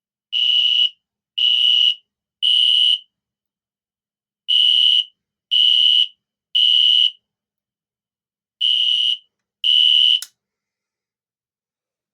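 System Sensor SpectrAlert Classic P2475RLZ horn strobe sounding its loud, high-pitched horn in the temporal-3 evacuation pattern: three half-second blasts, a pause, then three more. After two full sets and two blasts of a third, it cuts off with a click about ten seconds in.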